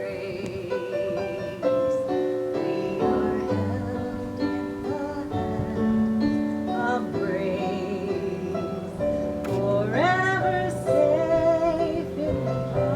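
Live acoustic guitar music with a singing voice, a slow meditative song; about ten seconds in the voice glides upward in pitch.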